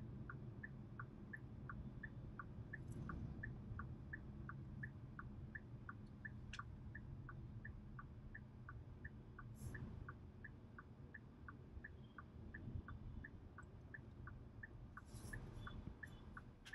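Hyundai Alcazar's turn-signal indicator ticking inside the cabin, an even tick-tock alternating between a higher and a lower click about three times a second, over the low hum of the car on the road.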